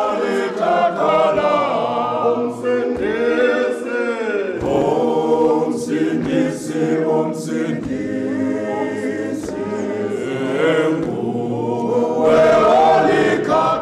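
A group of men singing together unaccompanied, several voices in harmony.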